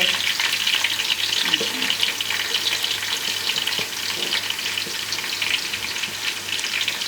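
Chicken pieces frying in hot oil in a small saucepan: a steady, crackling sizzle.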